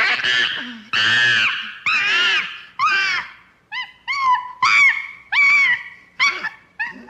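Chimpanzee-like creature vocalisation: a string of screeching cries, the first few long, then breaking into shorter, choppier yelps that thin out near the end.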